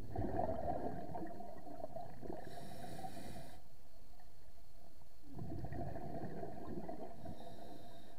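Scuba diver breathing through a regulator: two exhalations, each a burst of bubbles lasting two to three seconds, with a quieter gap between them.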